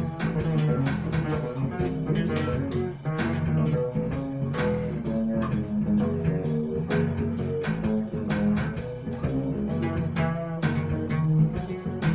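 Fretless Alembic Series I electric bass improvising a line of held, changing notes over a Korg Triton drum loop of steady, evenly spaced hits, about four a second.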